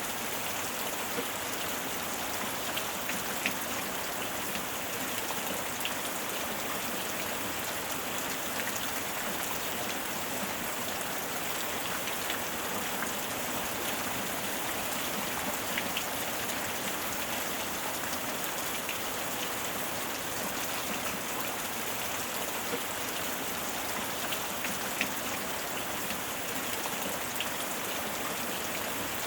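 Steady rain falling on a surface, an even hiss with scattered louder drop clicks.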